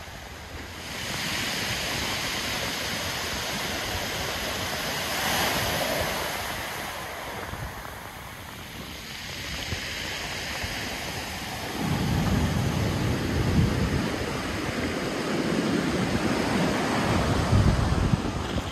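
Ocean surf breaking and washing up a cobble and pebble beach, the noise swelling and ebbing with each wave. About two-thirds of the way through, gusts of wind start buffeting the microphone.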